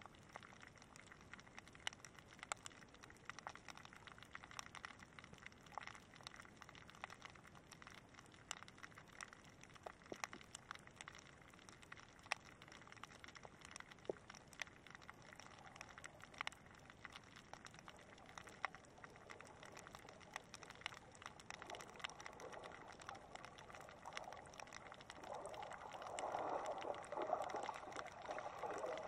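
Shallow-water underwater ambience: faint scattered clicks and ticks throughout, with a wash of moving water that grows louder over the last several seconds.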